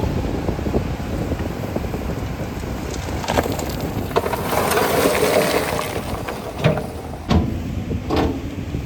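JCB 245 HD LR long-reach excavator working in rock: the engine running steadily under load while the bucket grinds and scrapes against stone, with a few sharp knocks of rock striking metal in the second half.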